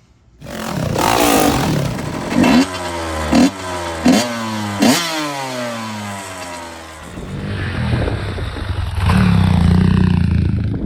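Motorcycle engine revved in four quick blips, the pitch jumping up and falling back each time, then running more steadily and growing louder about nine seconds in.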